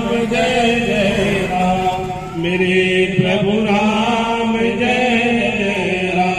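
A group of worshippers chanting a Hindi devotional recitation to Hanuman in a steady, sung tone, with a brief break about two and a half seconds in.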